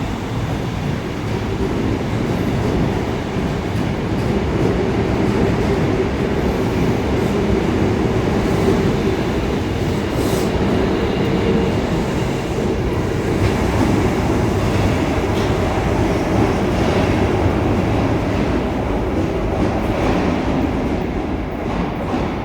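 Osaka Metro Tanimachi Line subway train running past the platform: a steady, loud rumble of wheels and traction motors with a faint hum through the first half and scattered clicks of wheels over rail joints.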